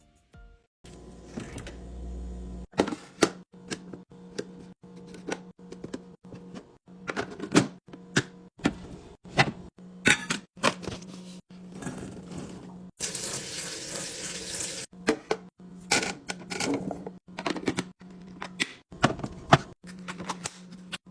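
Restocking sounds: a rapid run of clicks, taps and knocks from plastic containers, lids and packaging being handled and set down, broken by frequent cuts. A steady low hum lies under most of it, and about two-thirds of the way through comes a couple of seconds of hissing noise.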